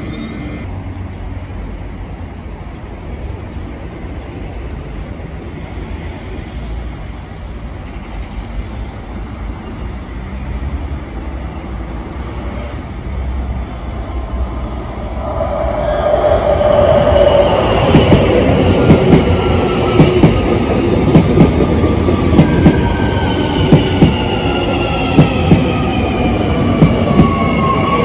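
Île-de-France Transilien electric commuter trains. At first a Francilien unit pulls away and its sound fades. About halfway through, a double-deck train comes in close and loud, its wheels clacking regularly over rail joints and its motors' whine falling in pitch as it slows.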